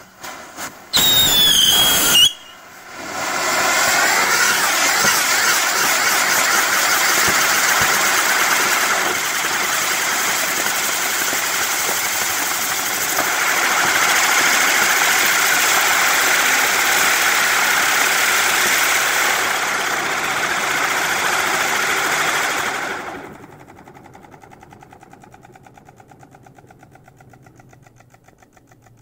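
Celtic Fireworks 'Spin On This' Catherine wheel burning: a short loud burst with a falling whistle as it lights, then a loud, steady hissing rush from its spinning fountains for about twenty seconds, shifting in tone a couple of times, cutting off suddenly near the end. Faint crackling follows as it burns out.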